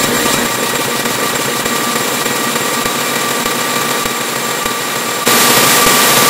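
Harsh, distorted electronic noise with a few steady tones running through it, the kind of heavily processed audio effect used in glitch-effect videos. It jumps suddenly louder about five seconds in.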